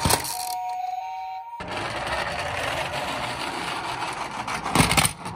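Toy ambulance's electronic tone cuts off about a second and a half in, then a steady rattling noise of a plastic toy vehicle running, ending in a loud clatter near the end.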